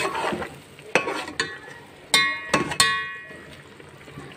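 A metal spatula knocking against a metal pot while stirring chicken pieces in a yogurt sauce being cooked down, about six ringing clinks in the first three seconds over a faint sizzle.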